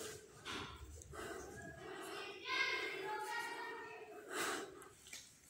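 Faint human voice sounds, a few of them drawn out and pitched like singing.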